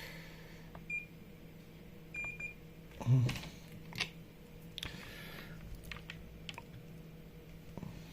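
Short high electronic beeps, once and then a quick pair, followed about three seconds in by a knock and then several small clicks and taps of handling on a workbench, over a steady electrical hum.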